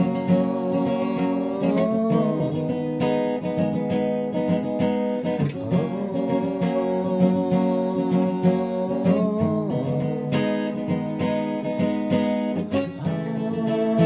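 Alvarez steel-string acoustic guitar, capoed, strummed in a slow ballad, the chord changing about every three to four seconds.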